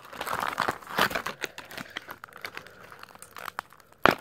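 Plastic toy packaging crinkling and tearing as it is pulled open by hand, busy with sharp crackles in the first two seconds, then sparser, with one loud crackle about four seconds in.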